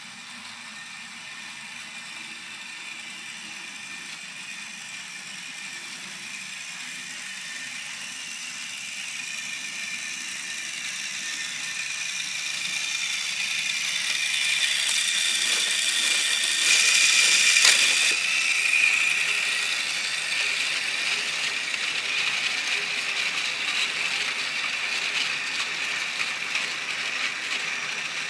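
Plarail toy E1 series MAX Shinkansen train running along plastic track: its small motor and gears whir and rattle with fine rapid clicking. The sound grows louder as the train approaches, is loudest a little past halfway as it passes close by, and then runs on steadily.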